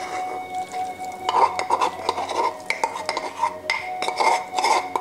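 Metal spoon scraping and knocking a pounded onion, garlic, parsley and almond paste out of a wooden mortar into a saucepan, in a run of irregular short strokes.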